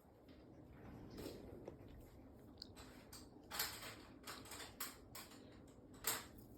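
A cat playing with a teaser wand toy: irregular soft taps and rustles, with a few sharper clicks from about halfway through and one near the end.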